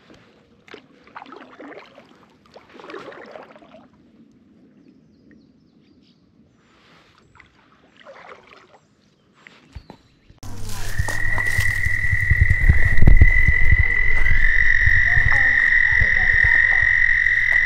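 Faint scattered calls, then about ten seconds in a frog starts one long, steady, high trill that holds an even pitch over a heavy low rumble.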